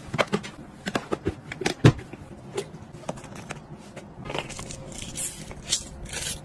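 Scattered light clicks and taps of plastic being handled as a small portable mini washing machine's lid is worked and the tub is loaded.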